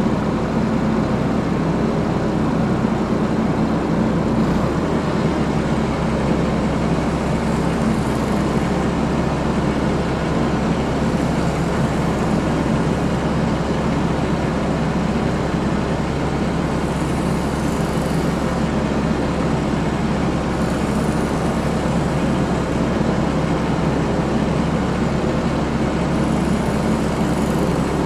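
Sportsman 1000-watt portable generator running steadily with a loud, even engine drone; its low hum shifts about five seconds in.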